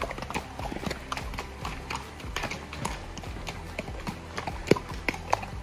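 Hooves of a passing mule train clopping on a rocky dirt trail, in an uneven patter of steps, with one hoof strike louder than the rest near the end.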